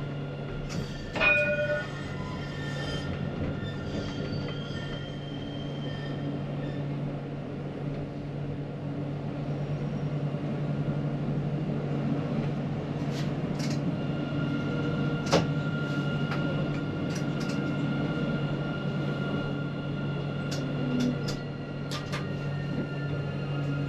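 Lyon TCL tram running on line T3: a steady low hum with rail and wheel noise, a few faint steady tones, and scattered short clicks and squeaks.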